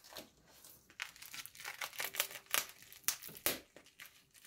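Clear plastic wrapping rustling in irregular short strokes as it is handled and cut open with small scissors.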